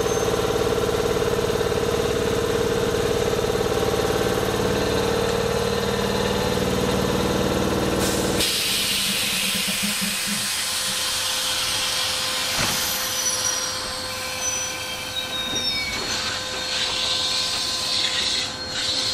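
Sanyo Electric Railway 3000 series electric trains at a platform: a steady machine hum from the stopped trains cuts off suddenly about eight seconds in, followed by a hiss and then a train starting to pull out, with short high squeals from the wheels on the rails.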